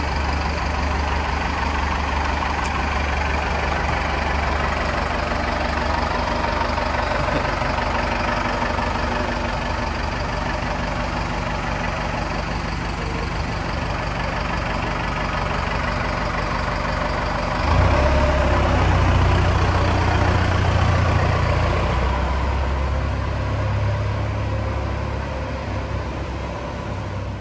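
Truck engine idling steadily with a low rumble. About 18 seconds in, the low end steps up louder, and the sound fades out at the very end.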